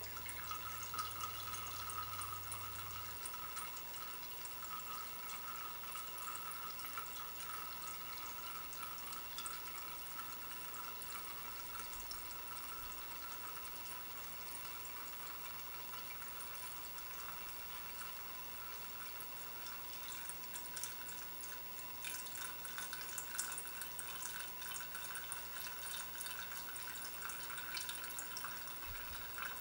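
Fuel running in a thin stream through a Dellorto carburettor jet and dripping into a plastic measuring cylinder: a steady light trickle with many small drips, a little busier near the end.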